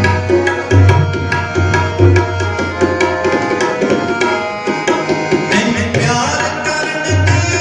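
Sikh kirtan music: tabla playing a steady rhythm, with deep resonant bass-drum strokes under sustained melody notes.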